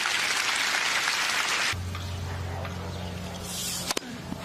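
Tennis crowd applauding, cut off abruptly under two seconds in. Then a quiet court with a steady low hum, and near the end one sharp crack of a racket striking the ball on a serve.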